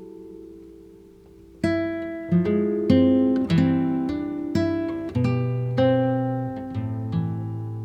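Background music: acoustic guitar playing a slow melody of plucked notes over bass notes, each note ringing out and fading. A held chord dies away at the start before a new phrase begins.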